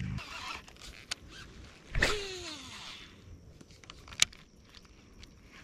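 A fishing rod and reel making a cast: a swish about two seconds in as line pays out, with a whine from the spinning spool that falls in pitch as it slows. About two seconds later comes a single sharp click.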